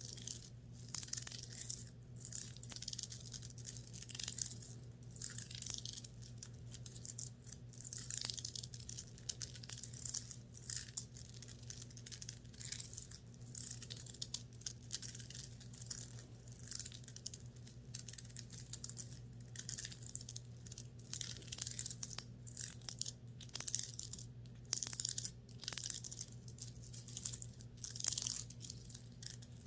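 Fabric of a top being scratched and rubbed in irregular strokes of hissy scraping, with a steady low hum underneath.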